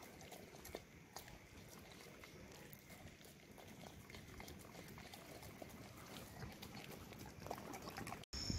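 A dog eating wet chicken rice off newspaper: faint chomping and smacking with small irregular clicks, over a soft steady patter of rain.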